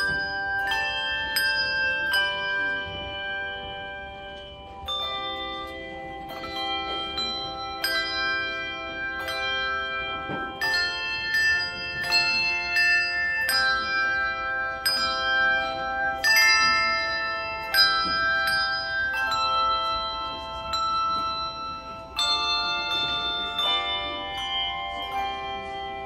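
A handbell choir ringing a piece on brass handbells: notes and chords struck about once a second, each ringing on and overlapping the next.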